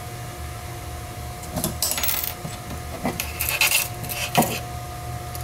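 Handling clicks and metal clinks as the coat-hanger-wire hinge pin is pulled from the plastic airsoft grip handle on the yagi antenna's boom and dropped on the table. There are several short bursts of clicking, the sharpest a second before the end, over a faint steady hum.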